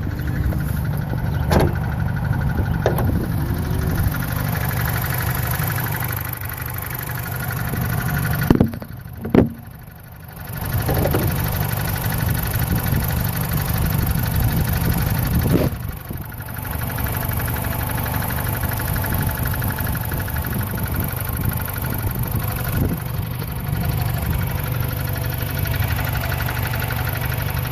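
2006 Chrysler Sebring's 2.4 L four-cylinder engine running with a rapid, constant rattle from the lower passenger side of the engine bay, which the owner takes for something loose shaking. Two sharp knocks come about nine seconds in, followed by a short quieter stretch.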